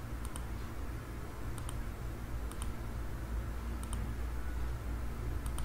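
Computer mouse clicking: short, sharp clicks spaced about a second apart, some in quick pairs, over a low steady hum.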